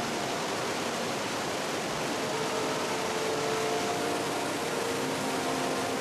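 Whitewater of a mountain stream cascading over rocks, a steady, even rushing. Faint held tones come and go above it.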